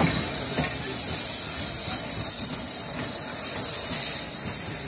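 Steel wheels of a passenger express train squealing against the rails over the running noise: a steady high-pitched squeal, with a higher squeal taking over about halfway through.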